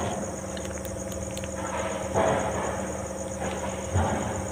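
Crickets chirping steadily in a fast even pulse, over a low hum. Two soft rushing noises stand out above them, about two seconds in and again near the end.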